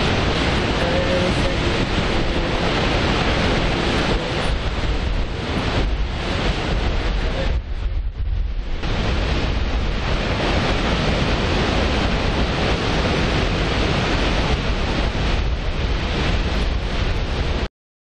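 Düden Waterfall pouring off the sea cliff into the surf, swollen with muddy water after heavy rain: a loud, steady rush of falling water and breaking waves. It drops away briefly about eight seconds in and cuts off just before the end.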